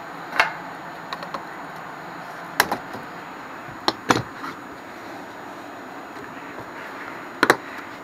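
Scattered sharp clicks and knocks, with a close pair near the end, from pipe cutters being worked onto and through a white plastic air-conditioner condensate drain pipe at its trap, where the clog sits. The hand tools and pipe are handled over a steady hiss.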